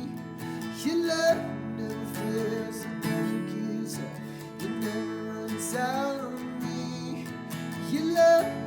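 Worship song: an acoustic guitar strumming steady chords, with a voice singing sustained notes.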